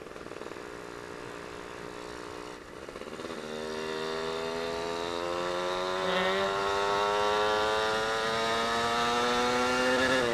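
Suzuki Satria 120's single-cylinder two-stroke engine, fitted with an AHRS racing exhaust, pulling under load while riding. After a brief dip about two and a half seconds in, the revs climb slowly and steadily. The slow climb matches the owner's complaint that the bike feels heavy and is slow to rise.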